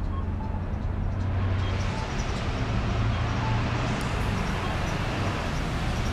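Street traffic: a steady low vehicle rumble with tyre hiss that grows about a second in.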